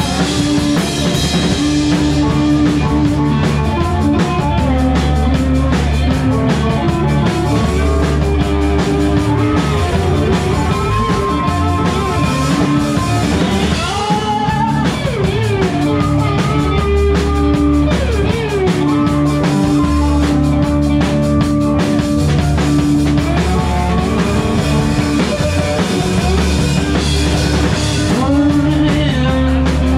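Live rock band playing: drum kit and electric guitars, with a harmonica played into a microphone, holding long notes and bending some of them.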